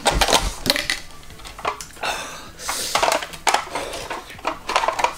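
Plastic lid pulled off a large yogurt tub and its seal peeled and crumpled by hand: a quick run of sharp clicks, crackles and crinkles.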